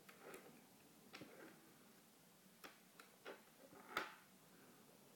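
Small neodymium magnet balls clicking as they snap onto a cluster of magnet balls. About six faint, sharp clicks come at uneven intervals, the loudest about four seconds in.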